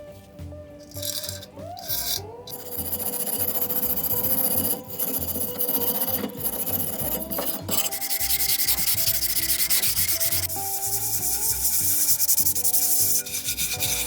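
Abrasive sanding on the primus stove's parts: continuous scratchy rubbing strokes, stripping old rust and paint. The rubbing starts a couple of seconds in and pauses briefly a few times.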